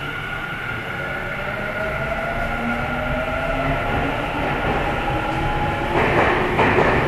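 Tobu 50050 series electric train running and gathering speed: the VVVF inverter and traction motor whine climbs steadily in pitch over the rumble of wheels on rail. About six seconds in, a louder rush of noise comes in.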